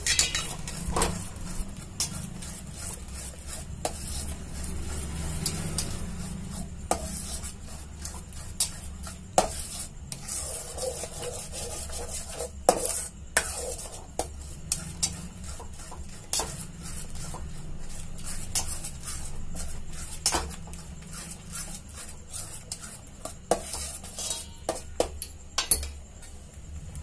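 A steel spoon stirs thick, reduced milk in a stainless steel pan, scraping along the metal with irregular sharp clinks of spoon on pan. The milk is being kept moving on a low flame so that it does not stick while it thickens into palkova.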